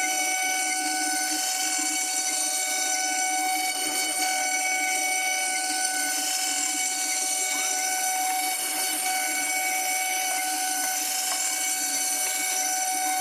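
CNC router spindle running with a steady high-pitched whine that holds one pitch throughout.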